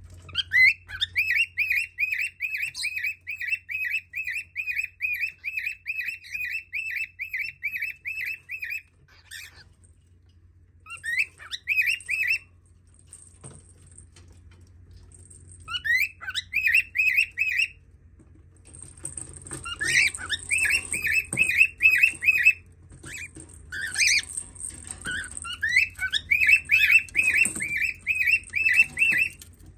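Small pet parrots calling in long runs of fast, high, repeated chirps, about three a second, in several bouts with short pauses between.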